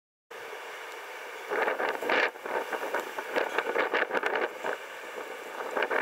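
Blizzard wind blowing in gusts and buffeting the camera microphone, an even rushing noise that swells twice, after a brief dropout at the very start.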